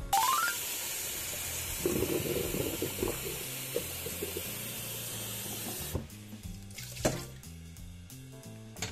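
Kitchen mixer tap running full into a stainless steel pot of water, a steady rushing splash that starts suddenly and stops about six seconds in. About a second later there is a single knock.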